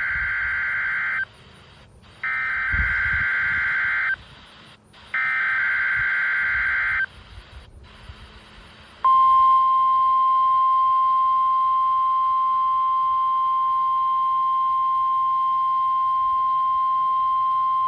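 NOAA Weather Radio Emergency Alert System test tones heard through a weather radio receiver. First come three bursts of SAME header data, each a harsh, buzzy digital warble about two seconds long with short gaps between them. A couple of seconds after the last burst, a steady single-pitch 1050 Hz warning alarm tone starts and holds for about nine seconds.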